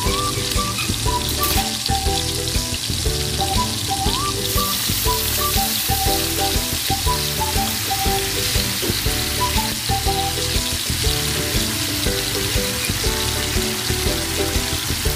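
Dumplings pan-frying in a nonstick pan, a steady sizzle; about four seconds in the hiss grows brighter and fuller as water bubbles and boils around them, the steam-frying stage. Background music plays throughout.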